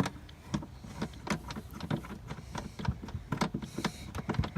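Irregular light clicks and knocks as the plastic twist fasteners holding an Audi TT mk1's rear light cluster are turned off by hand, mixed with handling noise from the phone held close.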